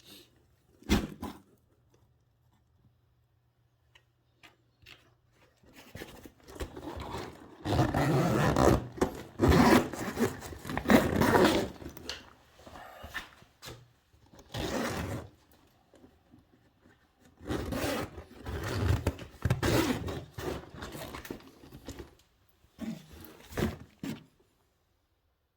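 Worm bins being handled: scraping and rubbing in irregular bursts over several seconds at a time, with a sharp click about a second in.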